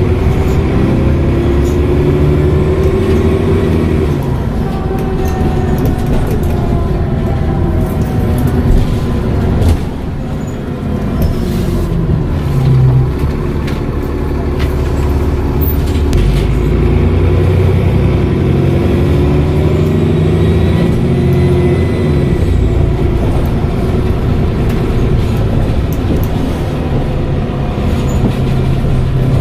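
Dennis Trident double-decker bus's diesel engine and Voith automatic gearbox under way. The engine note rises and falls several times as the bus accelerates, shifts and slows, with a few knocks. A faint high turbo whistle rises with the engine in the second half.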